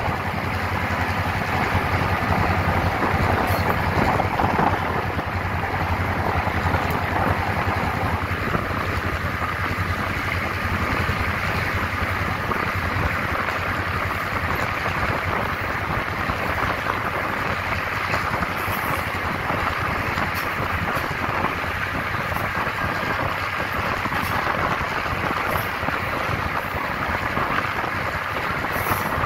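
EMD GL18B diesel locomotive running under way: a steady engine drone mixed with wind rushing past the microphone and wheel-on-rail noise.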